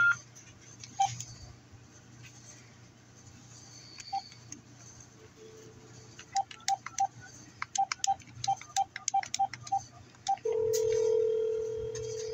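A phone number being dialled on a keypad: short single beeps, a few spaced out and then a quick irregular run of about a dozen, with faint taps. Near the end comes a steady two-second ringback tone as the call rings through.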